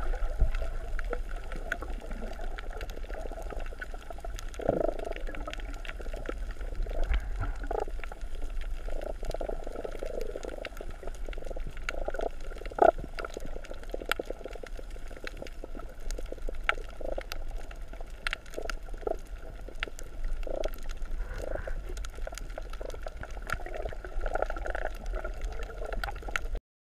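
Water heard underwater at a coral reef: a steady low rumble, irregular swells of water noise, and a constant scatter of sharp clicks and crackles.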